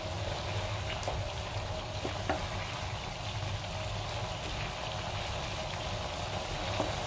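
Tauco sauce bubbling at a simmer in a wok while a wooden spatula stirs it, with a few light taps of the spatula against the pan over a steady low hum.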